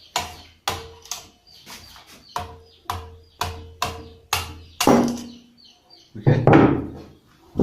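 About ten hammer blows, roughly two a second, on a screwdriver used as a drift to knock a worn front wheel bearing out of a motorcycle hub: sharp metal-on-metal knocks, several with a short ring.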